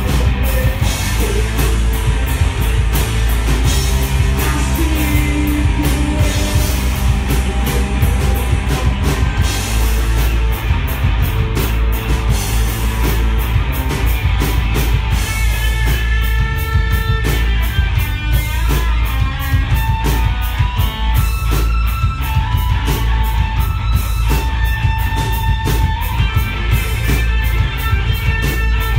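Live rock band playing loud: electric guitar, bass guitar and drum kit, with drums and cymbals keeping a steady beat. About halfway through, long held high notes come in over the band.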